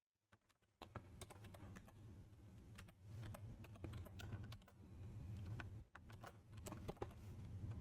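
Faint computer keyboard typing: irregular soft key clicks, over a low steady hum.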